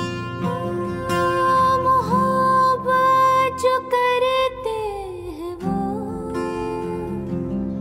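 Acoustic guitar strummed under a woman's singing voice, which holds long notes with small bends and slides down in pitch about five seconds in before settling on lower notes.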